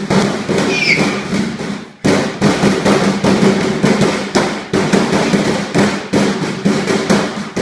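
Loud, rapid banging and crashing, several strikes a second with ringing carrying between them, broken by a brief pause about two seconds in.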